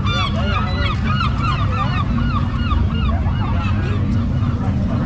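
A flock of birds calling at once: many short, arching calls overlapping without a break, over a steady low drone.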